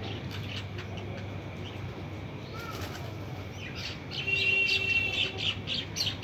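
Small birds chirping in short, high notes, growing louder about four seconds in with a rapid run of chirps and a held high whistled note.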